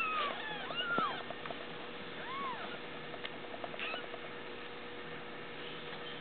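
Young kittens squeaking while nursing on their mother: a cluster of short, high squeaks that rise and fall in pitch, several overlapping, in the first two and a half seconds, then only a few faint ones.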